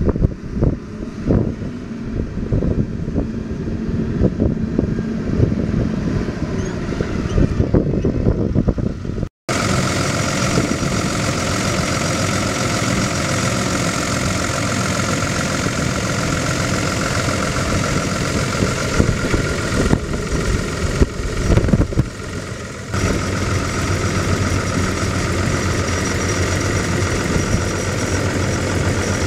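A wheel loader's diesel engine, first heard outdoors with gusty wind on the microphone while the loader works. About nine seconds in, after a sudden cut, the engine is heard up close at the open engine bay, idling steadily.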